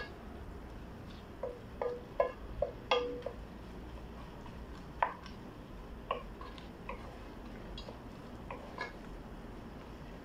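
Wooden spoon stirring carrots and onions in a cooking pot, knocking against the pot in irregular taps that each ring briefly. The taps come in a quick cluster about two seconds in, then more sparsely.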